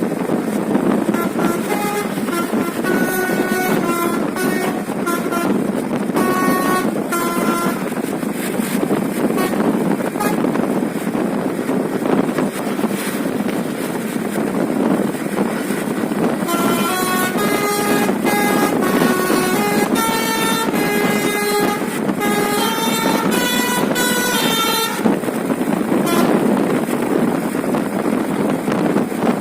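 Indonesian bus 'Basuri' telolet horn playing quick melodic runs of short notes: one run over the first eight seconds or so, and a longer, denser run from about 16 to 25 seconds in. A steady rumbling noise runs underneath.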